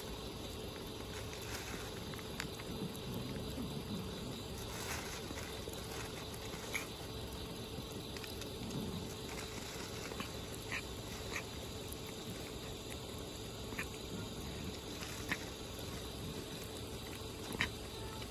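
A tortoiseshell cat eating dry kibble and wet cat food close to the microphone: scattered small crunching clicks of chewing over a steady background hiss.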